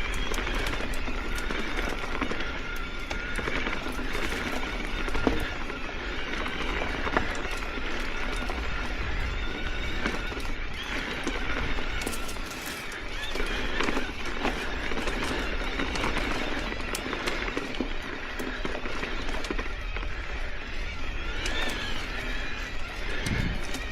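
Electric mountain bike's mid-drive motor whining under pedalling, its pitch rising and falling with effort, over tyre and trail noise with scattered small clicks and rattles from the bike.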